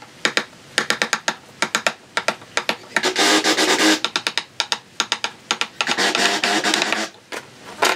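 Hand-pushed wood chisel paring waste from a cross-lap joint in a wooden beam: quick runs of crisp cracks and clicks as shavings split off, then longer scraping cuts about three seconds in and again around six seconds in.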